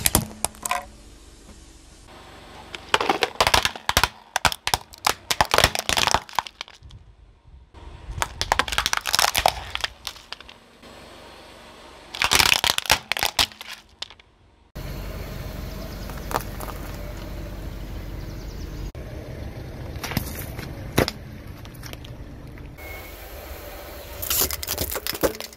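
Brittle objects cracking and snapping as a car tyre rolls over and crushes them, in three dense runs of cracks. Then, after an abrupt change, a steady low rumble with a few more cracks near the end.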